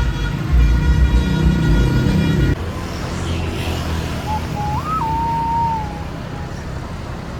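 Bus telolet horn, a multi-tone air horn, sounding a chord of several steady notes over the bus's engine rumble; it cuts off abruptly about two and a half seconds in. Traffic noise follows, with a brief whistle-like tone that rises and falls back around the middle.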